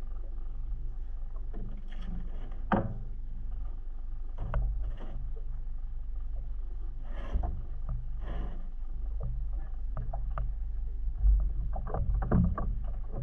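A small boat on the open sea, with a steady low rumble of water and wind, while a fishing rod and reel are worked for jigging. Scattered knocks and clicks come from the reel and the hull, there are a few brief rushing sounds midway, and a low thump comes near the end.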